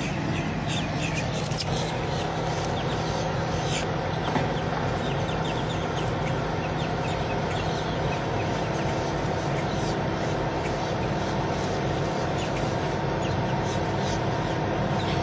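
Outdoor background noise: a steady low hum of vehicle engines, with faint short bird chirps over it.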